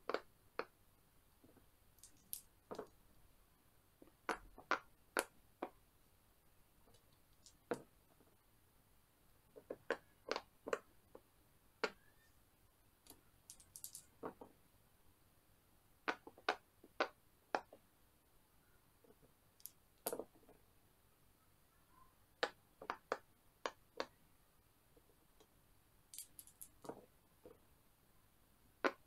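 Silicone pop-it bubbles being pressed one after another and a pair of dice being rolled and landing on the silicone board. The result is scattered sharp pops and clicks, often in quick clusters of several, with pauses between.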